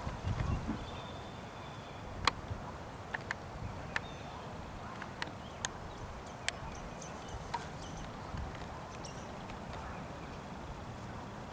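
Blustery outdoor ambience as a thunderstorm moves in: a steady hiss of wind, with scattered sharp ticks and a brief low rumble near the start. Faint high bird chirps come in about halfway through.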